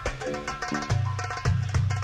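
Upbeat music with a percussive beat of sharp drum strikes over a stepping bass line.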